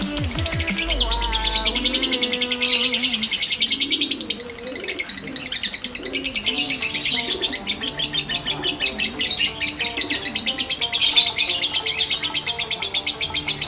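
Lovebird singing a long, very fast chattering trill of rapidly repeated high notes, broken only briefly twice, with faint music beneath.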